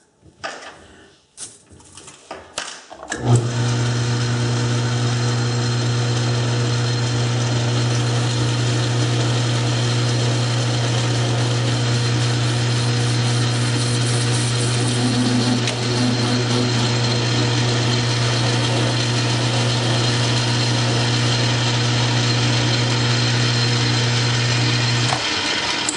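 South Bend metal lathe starting up after a few clicks and knocks, then running steadily with its spindle and four-jaw chuck turning, a strong low hum with a hiss over it. It stops shortly before the end.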